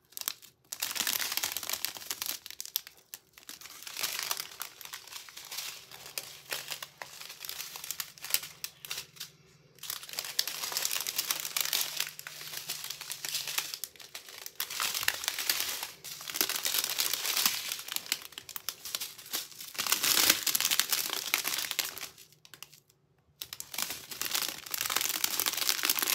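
Strips of small sealed plastic bags holding diamond painting drills crinkling and rustling as they are handled, in irregular bouts with brief lulls about 9 and 23 seconds in.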